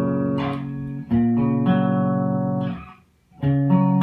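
Guitar playing three-note chord voicings: the notes of each chord are picked one after another and left ringing together. The second chord is stopped just before three seconds in, and after a short silence a new chord starts.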